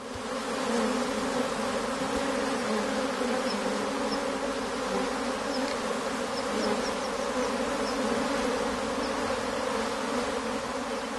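Honeybees of a top-bar hive buzzing steadily, a dense continuous hum of many bees.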